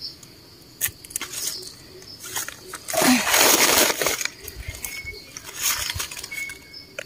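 Dry leaf litter rustling and crackling as a hand pushes through it, with a louder rustle about three seconds in. Near the end a knife trims the stem of a freshly picked wild mushroom.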